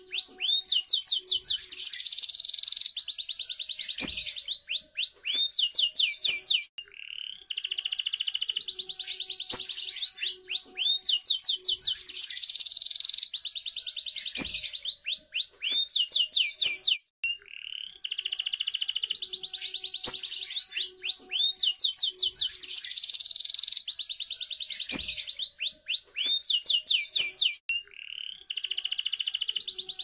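Domestic canary singing a long, continuous song of rapid trills, rolls and whistled notes, with three brief pauses between song runs.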